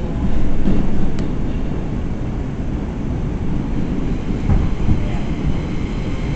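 R142 subway car running on the track, heard from inside the car: a steady, loud low rumble of wheels and running gear.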